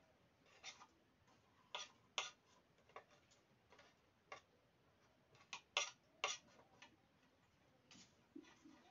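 Knife slicing potatoes on a small chopping board: irregular sharp taps each time the blade meets the board. The loudest taps come a little past the middle.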